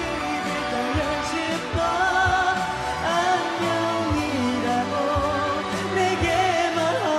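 A male singer sings a Korean pop ballad live into a microphone over backing music with a steady beat.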